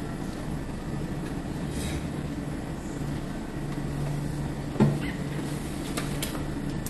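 Steady low background hum, with one sharp knock about five seconds in as a clear plastic food container is set down on a table, followed by a couple of light clicks.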